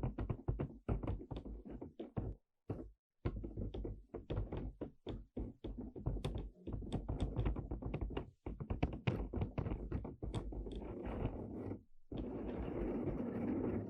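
ASMR tapping and knocking on hard objects, several quick taps a second in uneven runs, with a continuous noise for the last couple of seconds.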